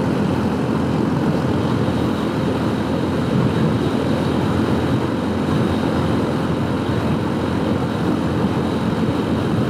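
Strong wind rushing over the microphone, steady and loud, over the Honda Super Cub C125's 125 cc single-cylinder engine running flat out in fourth gear. The engine is under heavy load: a strong headwind holds the bike at about 45 mph.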